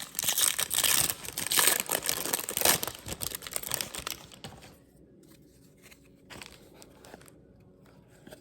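A foil-wrapped trading card pack being torn open and crinkled in the hands for about four seconds, then quieter rustling and light clicks as the cards are handled.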